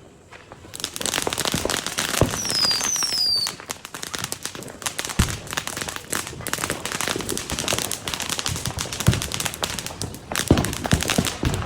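Fireworks going off: a dense, rapid crackle of small pops, with two short falling whistles about two to three seconds in and a few louder bangs scattered through.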